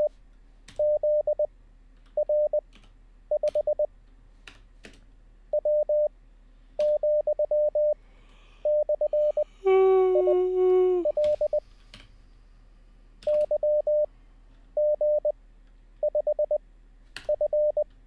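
Computer-generated Morse code (CW) practice audio: a steady mid-pitched tone keyed into dits and dahs at 20 wpm character speed, sent in short letter groups with pauses between. Computer keyboard keys click as the copied characters are typed. A brief, louder hummed tone comes about ten seconds in.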